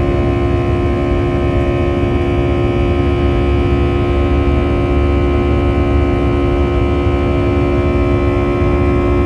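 Airbus A319 jet engines at climb power after takeoff, heard from inside the passenger cabin. They run as a steady, even drone: a set of constant humming tones over a low rumble and rushing air.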